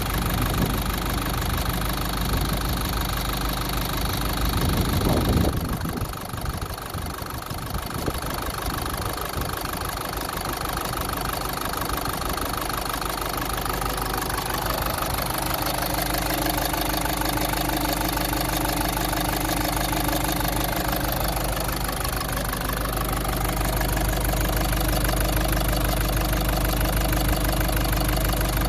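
Land Rover Freelander 2 four-cylinder engine idling a few minutes after starting, freshly repaired after a nut was ingested through the air intake. It swells briefly about five seconds in, then settles into a steady idle; the owner suspects a faulty injector that leaves one cylinder not firing until the engine warms up.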